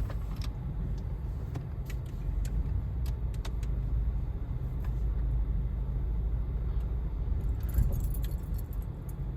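Steady low rumble heard from inside a car, with scattered light clicks and ticks and a small cluster of them near the end.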